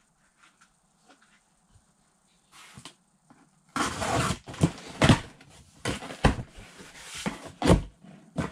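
Packaging being handled: a few faint clicks, then from about four seconds in a loud run of rustles and thumps, about two a second.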